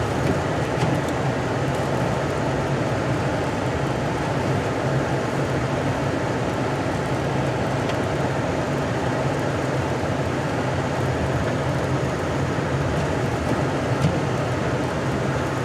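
A car running steadily as it creeps slowly down a snow-covered hill: a constant low engine hum under even road and tyre noise, with no sudden changes.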